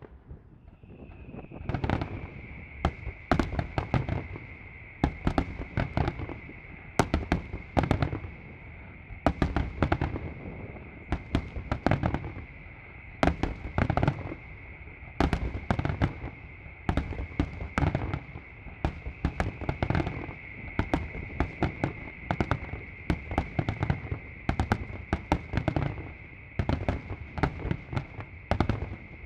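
Fireworks finale: a rapid barrage of aerial shells bursting, with sharp bangs several times a second. A steady high-pitched tone sounds underneath from about half a second in.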